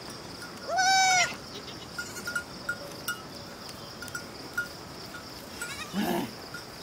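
Goats bleating as the herd is driven along: one loud, high-pitched bleat about a second in and a lower, shorter one near the end. Under them run a steady high buzz and scattered faint ticks.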